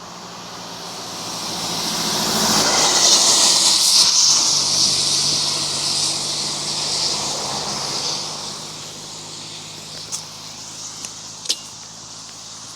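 A motor vehicle passing by on the road, its engine hum and tyre hiss swelling to a peak a few seconds in and fading away again. A few sharp clicks come near the end.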